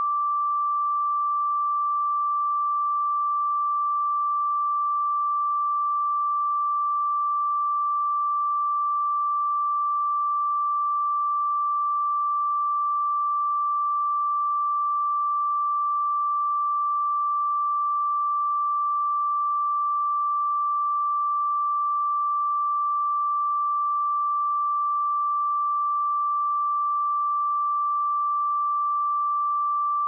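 A pure 1171 Hz sine-wave test tone, holding one steady pitch at constant level.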